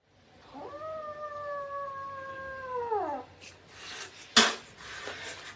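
A cat's long drawn-out meow, held for about two and a half seconds, rising in pitch at the start and falling away at the end. A short sharp noise follows about a second later.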